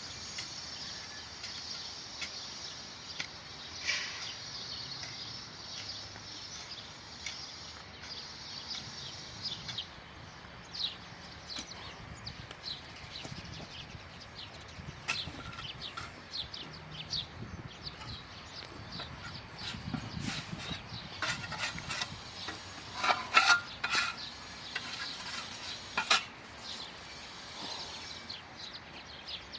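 Birds chirping, with many short, sharp clicks and clinks scattered through; a loud cluster of them comes a little past twenty seconds in.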